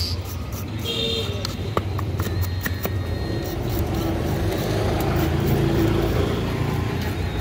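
Street traffic running steadily, with a short vehicle horn toot about a second in. Over it comes the scratchy scraping of a knife blade taking scales off a tilapia on a wooden block.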